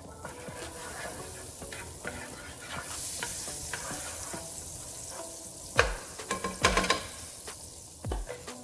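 Butter, garlic and thyme sizzling in a nonstick frying pan as a wooden spatula stirs them around. The sizzle grows louder about three seconds in, and a few sharp knocks come near the end.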